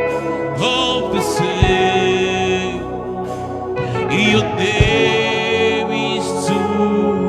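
Gospel worship music: a singing voice holding long notes with vibrato over sustained chords, with a deep drum hit twice.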